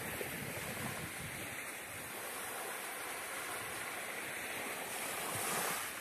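Small sea waves breaking and washing up a pebble beach in a steady hiss, with wind buffeting the microphone in low rumbles. A wave washes in louder near the end.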